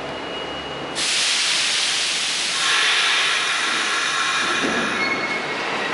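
R46 subway car's air brakes releasing: a loud hiss of compressed air starts suddenly about a second in. A high whistling tone mixes in from about halfway, as the stopped train gets ready to pull out.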